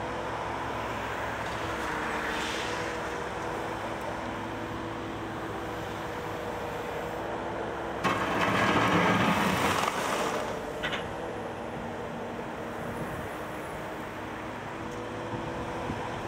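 Terex TW85 wheeled excavator's diesel engine running steadily under hydraulic work, its note shifting a few times. About eight seconds in, a loud two-second rush of gravelly noise as the steel bucket digs into the sand pile.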